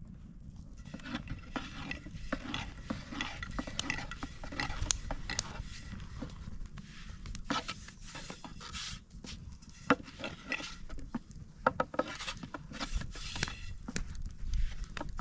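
A long, thin wooden rolling pin rolls flatbread dough on a floured round wooden board, with many irregular clicks and knocks of the pin against the board.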